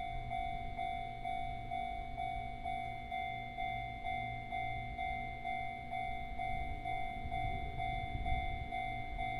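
An electronic warning bell repeating a single tone about twice a second, over a low steady hum.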